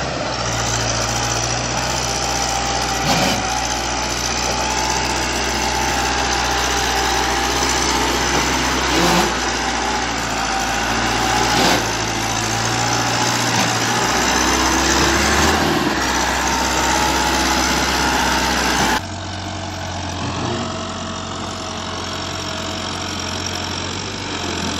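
Massey Ferguson 385 tractor's four-cylinder diesel engine running hard with a steady drone and a few short knocks. About three quarters of the way through it abruptly becomes quieter and lower.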